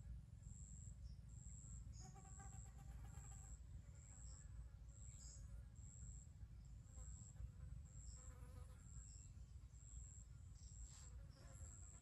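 Faint insect chirping: a high, thin pulse repeated a little more than once a second, over a low steady rumble.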